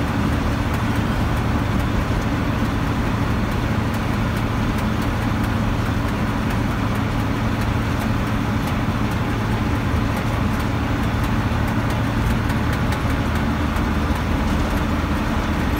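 Bus engine running steadily with tyre and road noise, heard from inside the cab while driving, with faint rattling ticks throughout.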